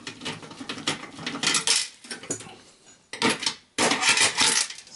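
Phillips screwdriver backing a motherboard screw out of a Dell OptiPlex 960's steel chassis: scraping and small metal clinks in a few short clusters, the busiest near the end.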